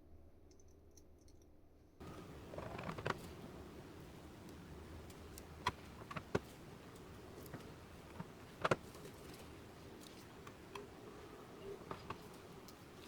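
Irregular, sparse sharp clicks and light taps from working on a small split keyboard, a few at a time with gaps between, over a faint steady room hum.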